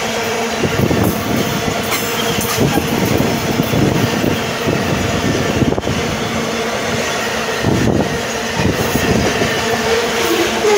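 Iron-ore gondola wagons of a freight train rolling past close by: a steady rumble of steel wheels on rail, with repeated clusters of clacks as the wagons' wheel sets go by and a steady whine underneath.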